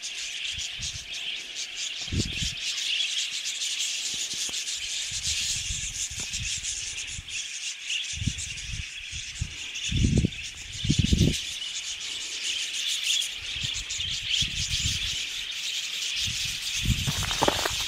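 A steady high-pitched hiss, with dull low thumps now and then; the loudest two come about ten and eleven seconds in.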